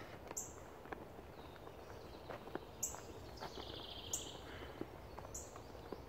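Faint outdoor ambience with birds calling: short high calls repeating about every one to one and a half seconds, and a brief trill near the middle. A few soft clicks sound among them.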